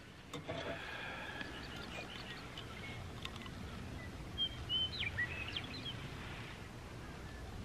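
Birds calling over a steady low background noise. A call of about a second comes near the start, then a quick run of short, high, gliding chirps a little past halfway.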